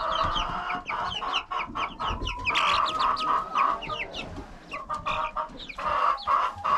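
A pen of young chickens cheeping: many short, falling peeps overlapping all through.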